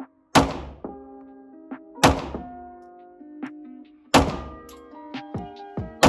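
Glock 43X 9mm pistol firing single shots roughly two seconds apart, three plus a fourth at the very end, each a sharp crack with a short echoing tail. Background music plays underneath.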